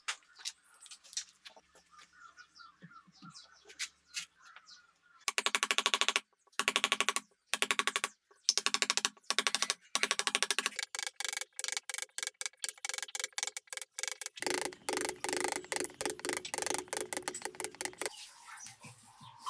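A power tool running in short bursts with a rapid rattling click, starting about five seconds in, then running longer and steadier until shortly before the end.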